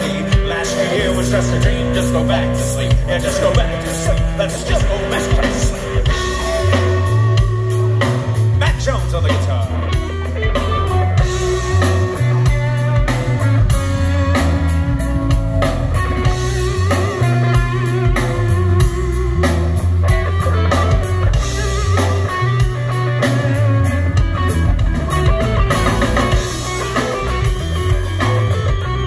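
Live rock band playing through a PA: electric guitars, bass guitar and a drum kit keeping a steady beat.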